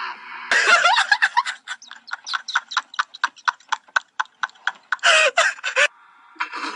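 A person laughing hard: a short run of pitched, vocal laughter, then a long string of quick, staccato laughing pulses about five a second, and a louder burst of laughter near the end. Another laugh begins just before the end.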